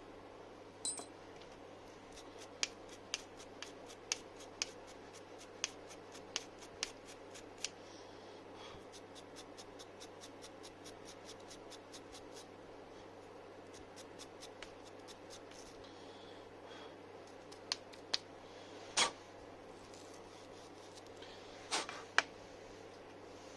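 Hand work on small parts: a run of light clicks and ticks, then a few louder knocks and short scrapes near the end, over a faint steady hum.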